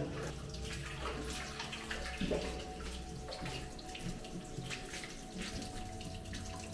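Water running steadily into a flooded underground tunnel, a continuous trickling and splashing flow.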